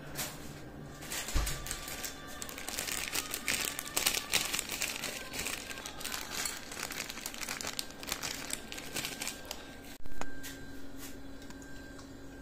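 A plastic food packet crinkling and rustling as it is handled over the plates, a dense run of rapid crackles. A short, loud thump comes near the end, after which the crinkling stops.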